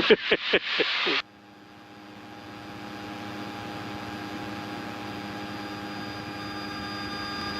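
Light aircraft's engine and propeller droning steadily in the cabin at a constant pitch. It grows gradually louder after a brief bit of talk at the start.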